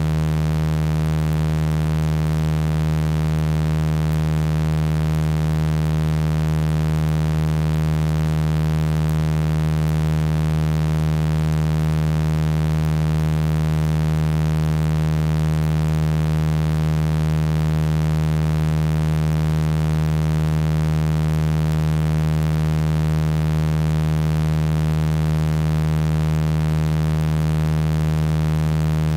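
Steady synthesized sound-healing tones generated from a voice sample: a continuous low hum with many evenly spaced overtones, unchanging in pitch and level.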